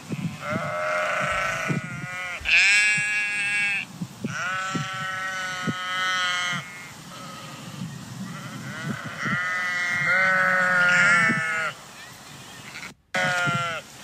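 Sheep bleating: about five long calls with short pauses between them, the last one brief.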